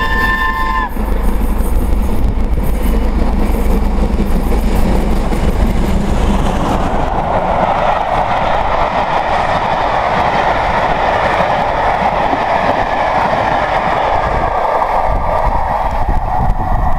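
Steam locomotive 70000 Britannia, a BR Standard Class 7 Pacific, sounding its whistle, which stops about a second in. Its train then passes close, loud and steady, the coaches' wheels running along the rails.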